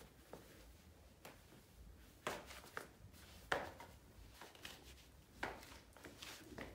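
Rubber-soled fur slide sandals tapping and scuffing on a tiled floor as the wearer shifts her feet: a string of irregular soft knocks, the loudest about three and a half seconds in.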